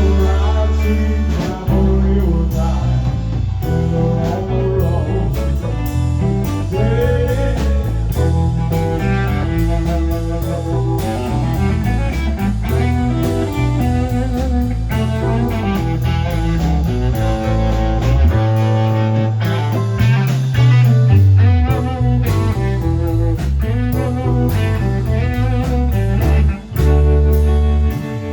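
Blues-rock music with guitar, bass and drums, and what may be a singing voice. The bass drops out briefly past the middle.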